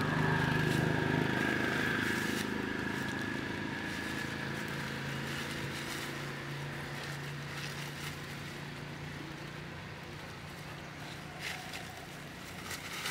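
A motor engine running with a steady hum that slowly fades, with a few faint crackles near the end.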